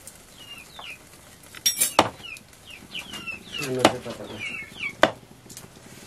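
A knife chopping chicken on a wooden block: three sharp chops, about two, four and five seconds in. Chickens chirp and cluck throughout.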